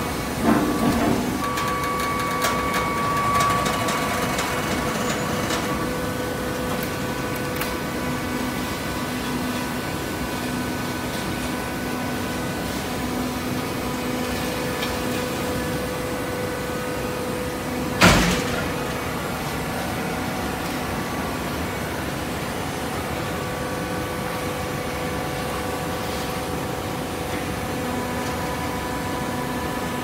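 Horizontal hydraulic baler running with a steady hum. There is a short knock near the start and one loud, sharp bang just past halfway.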